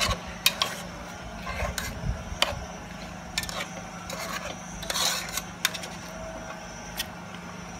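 A metal spoon scraping and knocking against the side of an aluminium cooking pot as chunks of meat in thick tomato sauce are stirred and turned, in irregular clinks and scrapes.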